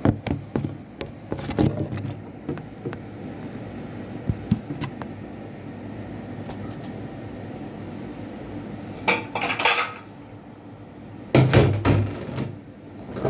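Plates and utensils clinking and scraping as a meal of fried chicken with sambal is handled, with scattered light clicks early on and two louder noisy bursts, one a little after 9 seconds and one about 11 to 12 seconds in.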